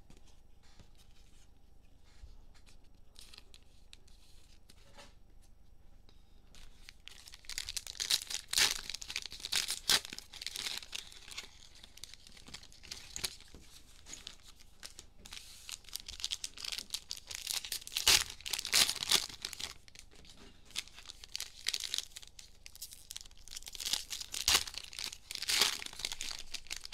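Cellophane wrappers of trading card packs being torn open and crinkled by hand, in repeated bursts of crackling that begin about seven seconds in; before that, only faint handling ticks.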